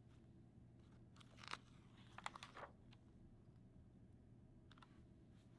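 A paper picture-book page being turned: a short, faint rustle of paper about a second in, otherwise near silence.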